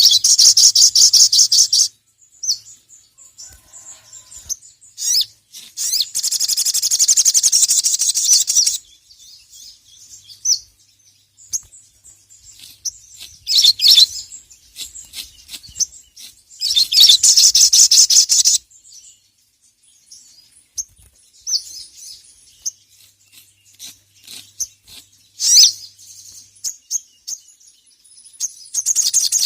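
A sogon (sogok ontong), a sunbird, singing in bursts of rapid, high-pitched chattering trills. Some phrases run for two or three seconds and others are short, with pauses between them. It is the fast, excited 'ngeriwik' song that keepers play to provoke a rival into singing.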